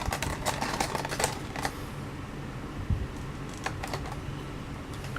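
Quick small clicks and taps of a diecast model car and its plastic packaging being handled, busiest in the first second or so, then a few scattered clicks.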